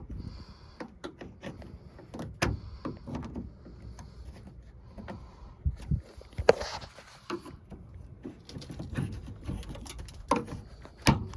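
Plastic interior trim panel on a 2002 Chevrolet Trailblazer's lift gate being pried and worked by hand: scattered clicks and knocks, with one sharp, loud click about six and a half seconds in.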